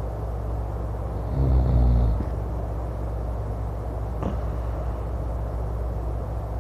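A man snoring loudly: one low, rasping snore about a second in, lasting about a second, over a steady low rumble, with a brief sharp click a few seconds later.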